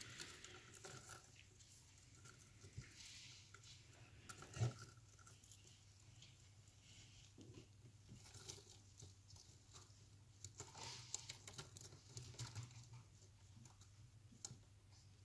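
Near silence with a steady low hum, scattered faint scratches and clicks, and one sharper knock about four and a half seconds in.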